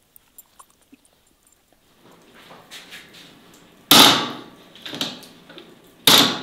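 Metal tray and glass jars under roast chickens being handled: two loud, sudden knocks about two seconds apart, each dying away quickly, with quieter clinks and handling noise between them.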